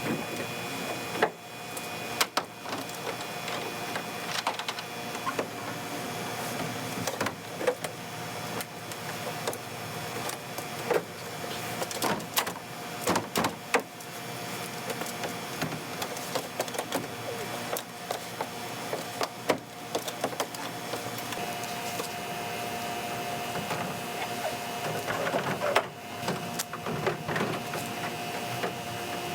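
Cordless impact driver running and rattling as it drives screws into the plastic shed, with sharp knocks and clicks from the panels and hardware being handled.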